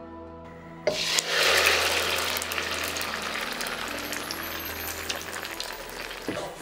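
Beaten egg mixed with chopped Chinese toon shoots hits hot oil in a pan about a second in and sizzles loudly, then the sizzle slowly dies down.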